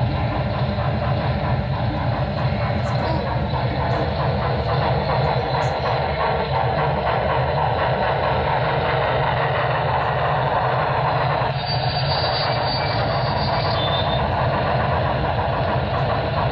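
HO-scale Broadway Limited Imports Y6 steam locomotive's Paragon3 sound running steadily as the model moves, with a deep rumble that the Rolling Thunder system sends to a subwoofer under the layout.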